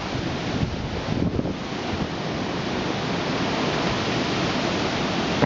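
A strong hurricane wind gust blowing hard outside an open door, a steady rushing noise, with some wind buffeting the microphone.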